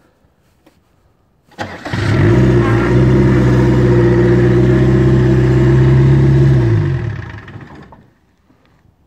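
Range Rover Classic engine on its first start-up: it catches about a second and a half in, runs at a steady speed for about five seconds, then is switched off, its pitch falling as it winds down.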